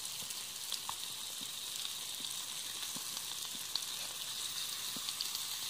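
Baklava warming in a steel pan over charcoal embers, its syrup sizzling and bubbling: a steady hiss with scattered small pops.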